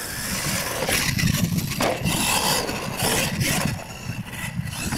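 Radio-controlled monster truck driving on a dirt track: its drivetrain and tyres on the dirt come and go in bursts as the throttle is worked.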